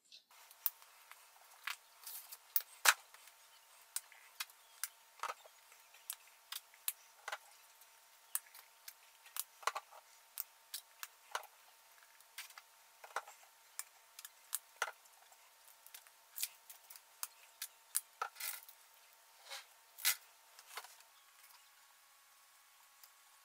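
Irregular sharp clicks and light taps, about one or two a second, over a faint hiss, with the loudest clicks about three seconds in and near the end.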